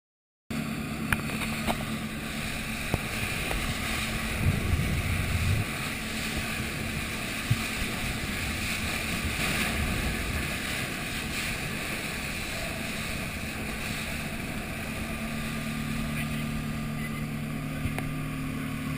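Outboard motor of a dive boat running steadily at speed, with a low, even hum under the rush of wind and water. It cuts in abruptly about half a second in.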